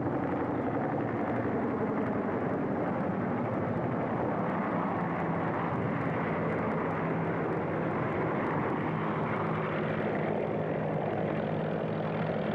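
UH-1 Huey helicopter's turbine engine and rotor running steadily, a constant noise with a low hum underneath.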